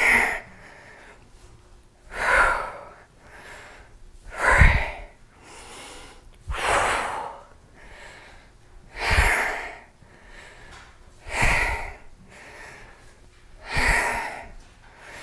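A woman breathing hard under exertion during a set of weighted squats: a loud, forceful breath about every two and a half seconds, seven in all, with a softer breath between each.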